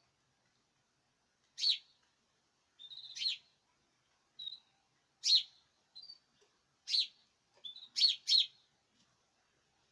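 A caged bird giving short, sharp chirps, about nine of them at irregular intervals of half a second to a second.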